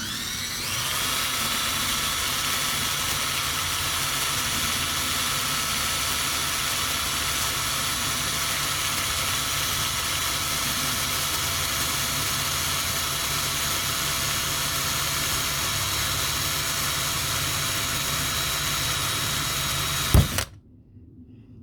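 Electric drill spinning up and then running steadily while boring a small hole through a gear knob collar, ending about 20 seconds in with a single sharp snap as the drill bit breaks, after which the drill stops.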